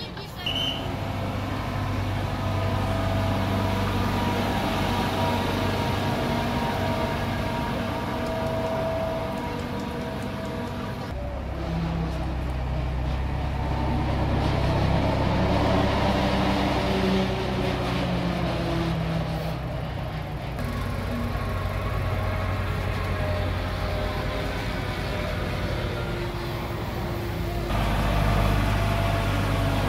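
Engine of a slow-moving parade float running steadily, a continuous low drone.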